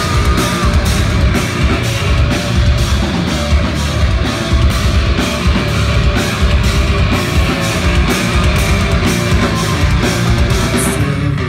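Rock band playing live and loud: electric guitars, bass and a drum kit with a steady drum beat, with no singing yet.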